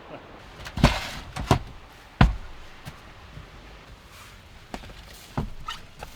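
A handful of separate knocks and thumps, irregularly spaced, as things are moved and set down in a van, over a faint steady rustle.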